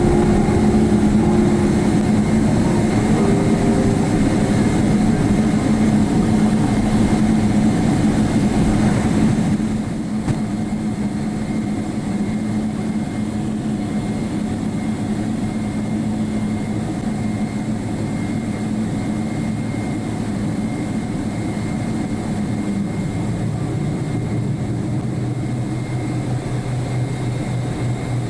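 Steady drone of an airliner heard from inside the cabin: a Boeing 777-300ER's GE90 engines and airflow, with low hums under the noise. About ten seconds in, the hiss thins out and the drone gets a little quieter.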